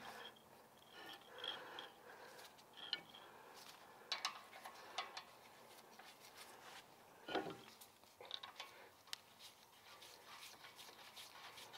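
Mostly quiet, with faint scattered metal clicks and taps: a new drilled and slotted brake rotor being seated on the rear hub and its retaining screw threaded in by hand, only snug.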